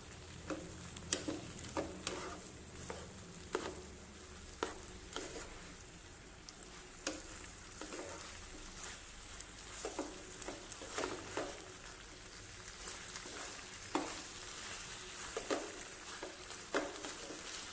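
Chicken and kangkong (water spinach) sizzling in a non-stick wok while a wooden spatula stirs and scrapes through them, with irregular light knocks of the spatula against the pan over a steady hiss.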